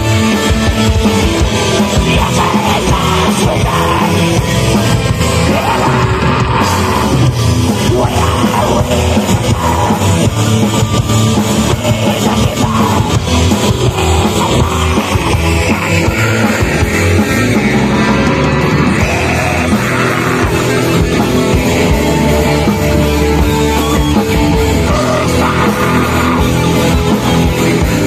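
Live heavy metal band playing loud, with dense distorted guitars and drums.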